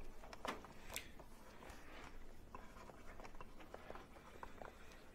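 Faint light ticks and scratches of a stylus writing on a tablet screen.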